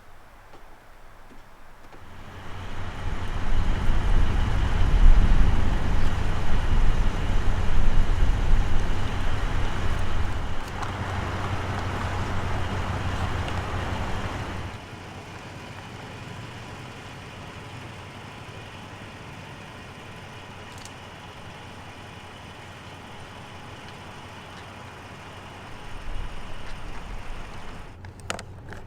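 Vehicle driving, a steady rumble of engine and road noise that grows louder about two seconds in and drops to a quieter steady hum about halfway through.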